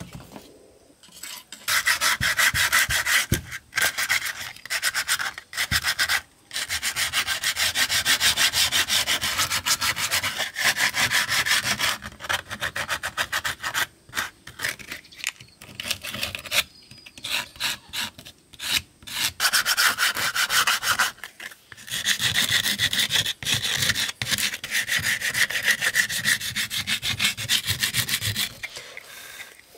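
A surface being abraded by hand with rapid back-and-forth strokes, in spells of several seconds broken by short pauses; it starts about two seconds in.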